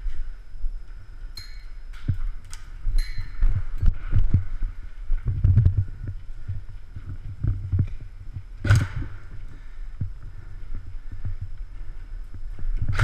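Dull, irregular thumps of a person moving and stepping, picked up close by a body-worn action camera, with a few sharp clicks in the first few seconds and one louder snap about two-thirds of the way through.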